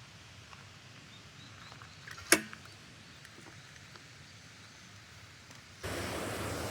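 A single sharp click, with a short low ring after it, about two seconds in over quiet background with a few faint ticks. Near the end the sound cuts abruptly to a steady, louder wind-like rush.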